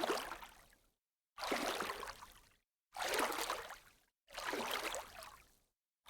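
A water-splash sound effect played four times, each splash starting abruptly and fading out over about a second, with dead silence between.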